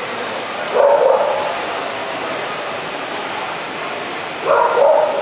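A dog yipping and barking in two short bursts, a couple of yips about a second in and again near the end, over steady hall noise with a faint high steady tone.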